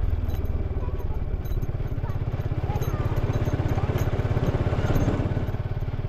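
Suzuki Gixxer 155's single-cylinder engine and exhaust running under way at low road speed: a steady, pulsing exhaust note that swells slightly about five seconds in.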